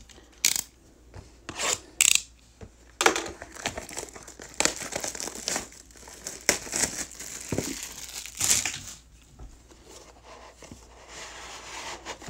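Plastic shrink wrap being torn off a trading-card box and crinkled: a few sharp snaps of plastic in the first three seconds, then several seconds of dense crinkling that eases off near the end.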